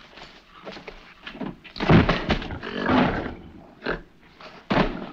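Movie ape, a man in a gorilla suit, growling and roaring in a few loud bursts, the loudest about two and three seconds in.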